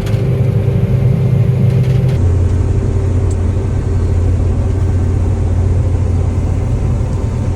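John Deere combine harvester running steadily under load while harvesting milo, a continuous low engine and machinery rumble with a steady hum above it. The rumble drops slightly in pitch about two seconds in.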